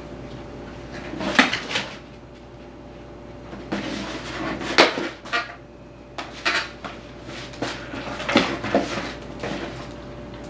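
Tibetan Terrier puppy shoving a cardboard box around a wire exercise pen on a tile floor: several bursts of knocking and clattering, loudest about a second and a half in and again near the middle.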